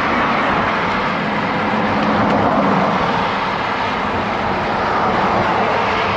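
Motor vehicles passing close alongside a bicycle on a highway: a steady rush of tyre and engine noise that swells and fades as each one goes by, over wind noise on the microphone.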